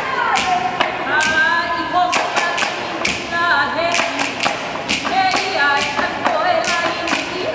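Chanted Hawaiian song for hula, sung by voices, with short sharp strikes of an ipu gourd drum beating time under it every half second or so.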